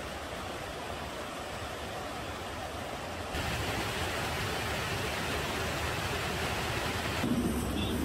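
Steady rushing of a mountain stream, getting louder about three seconds in.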